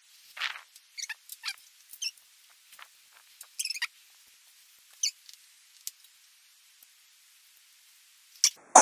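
Scattered light crinkles, small squeaks and clicks from hands handling a Kinder Surprise egg's foil wrapper and small plastic toy pieces, with a louder sharp snap near the end.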